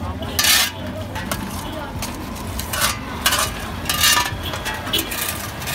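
Several short, harsh scrapes of metal shovels against the ground and a metal basin as drain sludge is scooped out, with people talking in the background.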